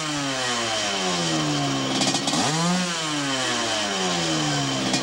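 ATV engine being revved twice while the machine stands still, each time climbing quickly in pitch and then sinking slowly back down.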